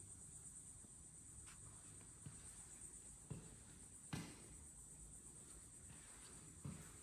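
Near silence with a faint, steady high-pitched drone, and a few soft knocks from footsteps, the clearest about four seconds in.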